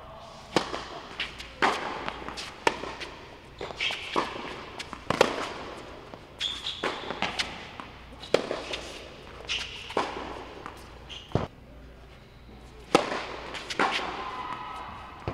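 Tennis ball struck by racquets and bouncing on an indoor hard court during a rally, sharp hits about once a second, each echoing in the hall.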